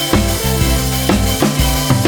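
Background music with a steady drum beat and a pitched bass line.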